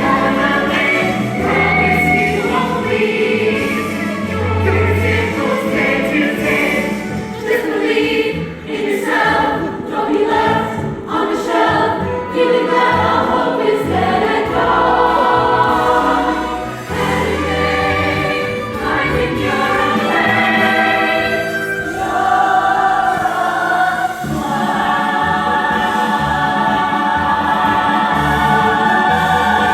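A musical theatre cast singing in chorus in a show's closing finale number. From about two-thirds of the way in, the voices settle into long held notes.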